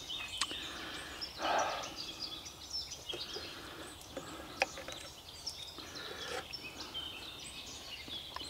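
Knife and fork scraping and clicking on a wooden board as a grilled steak is cut, with a louder scrape about a second and a half in and a sharp click about halfway through. Birds sing steadily in the background.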